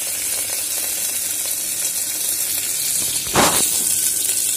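Onions, garlic, red chillies, curry leaves, cumin and tomato paste sizzling steadily as they fry in oil in an aluminium pressure cooker. A brief louder noise cuts across the sizzle a little over three seconds in.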